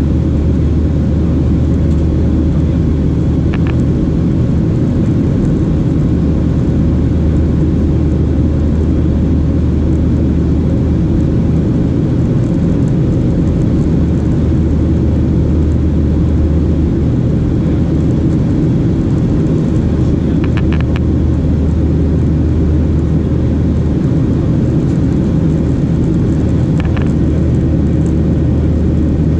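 Steady in-flight cabin noise of a Boeing 737-800 climbing, heard from a window seat over the wing. It is a constant low rumble from its CFM56-7B engines and the airflow past the fuselage.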